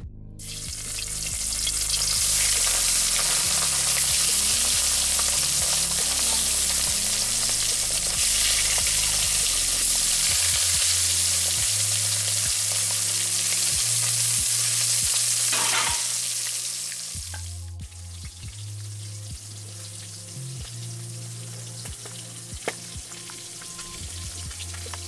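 Marinated fish pieces frying in hot oil in an iron kadai: a loud sizzle that starts as the pieces go in and dies away about sixteen seconds in. Background music with low, slowly changing notes runs underneath.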